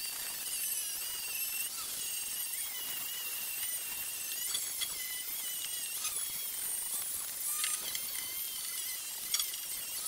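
Angle grinder with a flap disc grinding down steel weld beads, a steady high whine that wavers in pitch as the disc bears on the metal, with a few sharp ticks.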